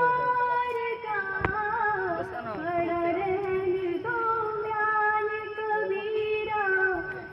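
Female voice singing a slow melody in long held notes, with a single sharp click about a second and a half in.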